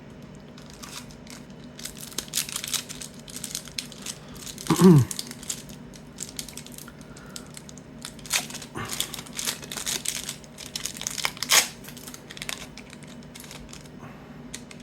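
Crinkling and tearing of a trading-card pack wrapper as the pack is torn open, in irregular bursts. About five seconds in there is a short murmur from a voice, falling in pitch.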